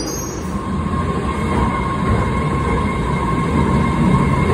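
MBTA Red Line subway train arriving at an underground platform: a steady rumble of the cars, with a steady high whine setting in about a second in.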